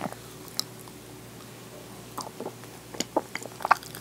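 Close-miked mouth sounds of eating soft fruit pudding: scattered wet smacks and clicks, getting busier and louder about three seconds in.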